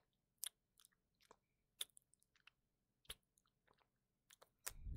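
Faint, wet mouth clicks and lip smacks close to the microphone, about seven scattered ticks, then a breath drawn near the end.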